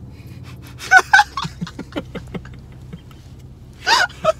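A woman laughing with her hand over her mouth: a sharp, gasping burst of laughter about a second in and another near the end, with a steady low hum underneath.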